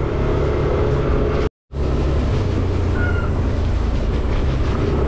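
Motorcycle engine running at a steady cruise, with road and wind noise. The sound cuts out completely for a moment about a second and a half in.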